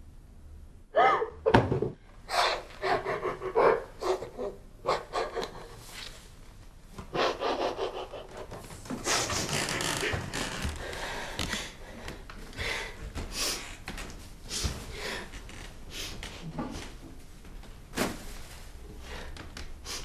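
A woman panting and gasping in ragged, uneven breaths, with a few sharp knocks.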